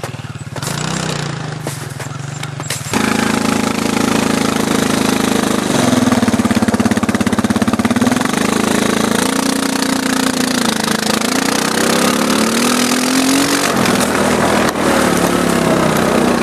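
Arctic Cat 250 quad's engine running, lower for the first three seconds, then louder and revving up and down as it tows a snowboarder on a rope.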